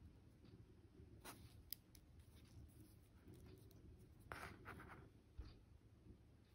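Near silence with faint handling sounds: a couple of small ticks and a brief scratchy rustle as fingers turn a piece glued up from coquina shells.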